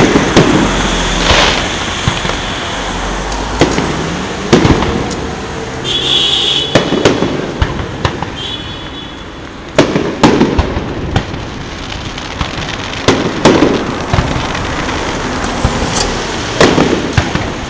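Aerial firework shells bursting overhead: a series of sharp booms, each trailing off in a rumbling echo, with crackling between them.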